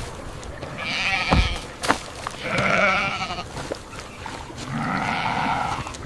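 Goats bleating: three long, wavering calls a second or so apart, with a couple of short knocks between the first two.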